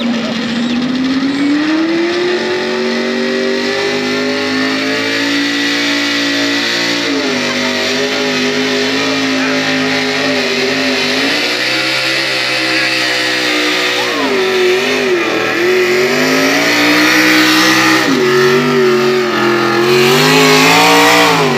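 Pickup truck's engine running at high revs under heavy load while pulling a weight-transfer sled. Its pitch climbs over the first few seconds, then holds high with several dips and a deep wavering sag about two-thirds through, before climbing once more near the end.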